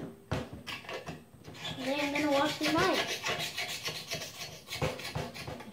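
Close handling noise on a phone microphone: a quick knock, then fingers rubbing and scraping against the mic in a fast scratchy rasp, with a brief hummed voice sound that rises in pitch near the middle.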